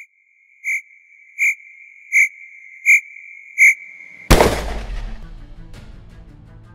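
Intro sound effect: five evenly spaced high electronic beeps, about one every 0.7 seconds, over a steady tone, then about four seconds in a sudden loud gunshot blast that dies away over a couple of seconds.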